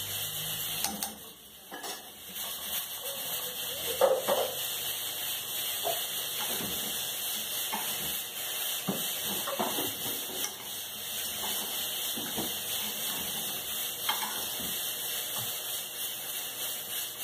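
Raw rice frying in oil in a cooking pot, a steady sizzle, while a spoon stirs it and scrapes and knocks against the pot; the loudest knock comes about four seconds in.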